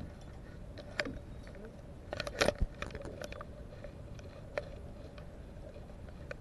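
Muffled clicks and knocks from a homemade underwater camera rig hanging on fishing line, heard through the camera's housing: single clicks about a second in and near the end, and a louder cluster of knocks about two seconds in, over a faint steady hum.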